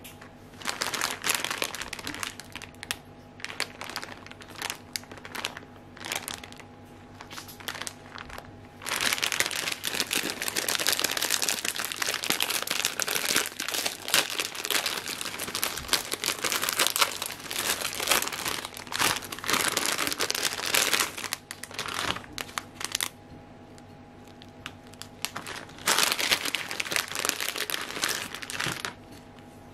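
Plastic instant-ramen packet crinkling in the hands as it is handled and torn open. It comes in short bursts at first, then runs continuously for a long stretch, pauses, and returns in one more burst near the end.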